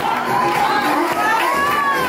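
Crowd of onlookers shouting and cheering, many voices calling out over one another, hyping a breakdancer's floor moves.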